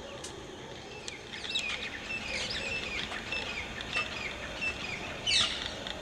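Small birds chirping: a run of short, high chirps that slide down in pitch, starting about a second in, with the loudest chirp just after five seconds, over a steady outdoor background hiss.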